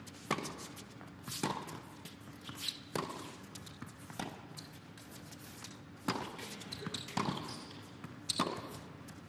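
Tennis rally on an indoor court: a tennis ball is struck by rackets and bounces off the court, making sharp pops about every one to one and a half seconds.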